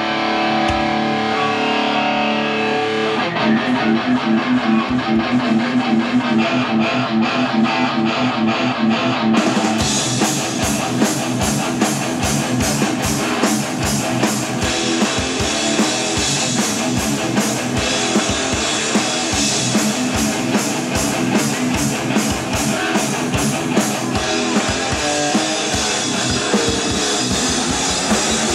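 Live rock band playing a song: electric guitars open with a riff alone, and the drum kit with cymbals comes in about ten seconds in, after which the full band plays a driving rhythm.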